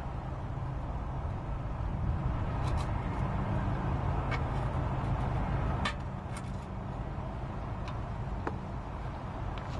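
A handful of light, sharp clicks and taps from hand tools working the small dust shield screws on a truck's wheel hub, over a steady low rumble that swells for a few seconds in the middle.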